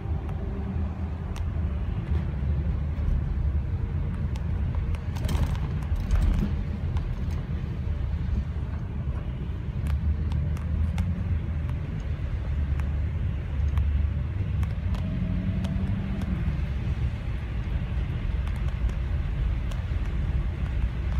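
Steady low road and engine rumble heard inside a car's cabin, tyres running on a wet road, with scattered light ticks throughout.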